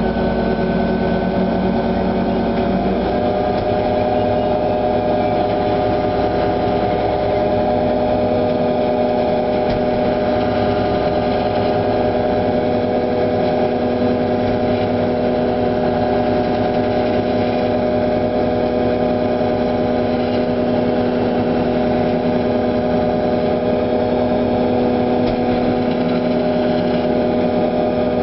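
A vessel's engine running steadily and loud, a constant drone of several steady tones. Its pitch shifts a little about three seconds in.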